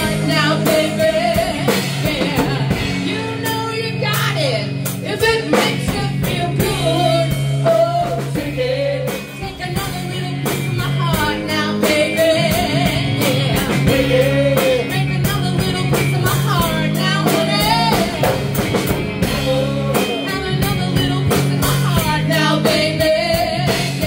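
Live rock band playing a song: a lead vocal over electric guitars, electric bass and drum kit.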